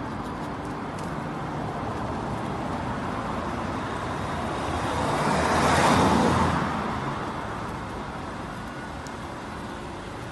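Street traffic noise, with one car passing close by about six seconds in, its noise swelling and then fading away.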